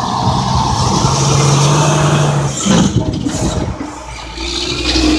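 Tractor-trailer truck passing close by: its diesel engine drones steadily, the drone breaks off about two and a half seconds in, and a rush of noise follows as the trailer rolls past, with traffic growing loud again near the end.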